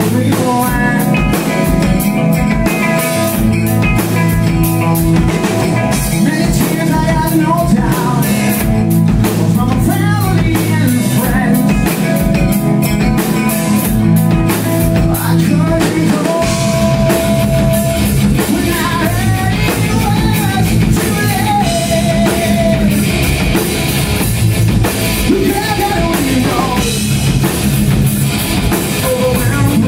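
A rock band playing live and loud: electric guitar, bass guitar and drum kit, with gliding lead notes over the band and the bass and drums growing fuller about halfway through.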